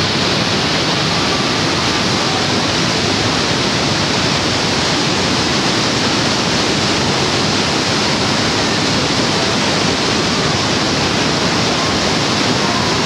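Niagara Falls' falling water rushing in a loud, steady, unbroken wash of noise.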